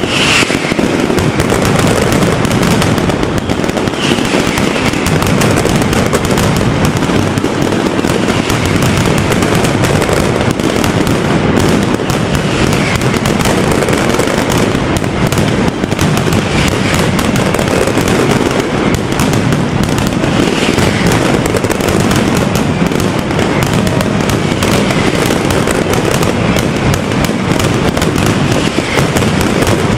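Mascletà firecrackers going off in a rapid, continuous barrage of bangs, with no break, and a few brief whistles cutting through.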